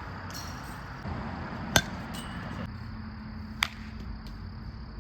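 Baseball bat hitting a ball twice, two sharp ringing cracks about two seconds apart.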